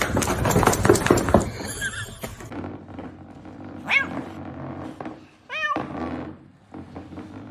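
Loud clattering and thumps, then a cat meowing twice in short calls.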